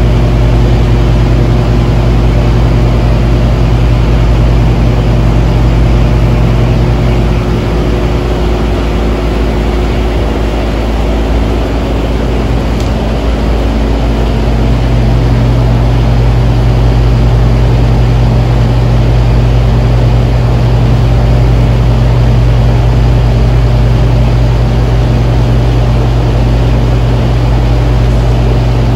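Steady, loud mechanical drone with a deep hum, running without a break; it dips slightly around the middle and then comes back up.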